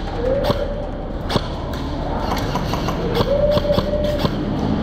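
Scattered single airsoft shots and knocks, sharp and irregular, echoing under a large roofed hall. A drawn-out call or tone sounds twice, briefly near the start and longer past the middle.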